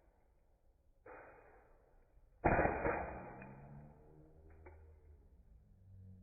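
Gas airsoft pistol shots: a fainter one about a second in, then a loud one about two and a half seconds in, each dying away slowly.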